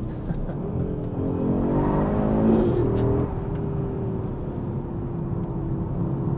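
Audi RS3's turbocharged five-cylinder engine accelerating: the revs climb over the first few seconds, with a brief sharp burst of noise about two and a half seconds in, then it runs at a steady pitch.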